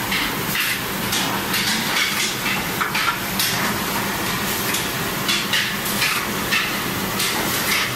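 Chocolate depositing machinery running: a steady hiss with sharp mechanical clacks about twice a second over a faint low hum.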